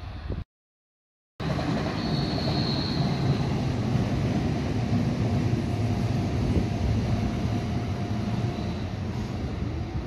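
Long electric train running past on the tracks: a steady rumble and rattle of wheels on rail, with a faint high whine about two seconds in. The sound drops out to dead silence for about a second near the start, where the recording cuts.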